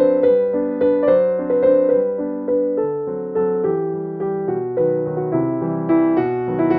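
Background piano music, notes struck about twice a second, each fading before the next.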